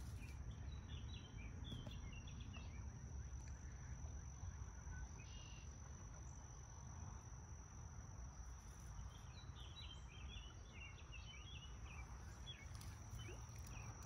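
Quiet outdoor ambience: a steady high-pitched insect trill, with two bursts of small-bird chirping, one near the start and one about nine seconds in, over a low rumble.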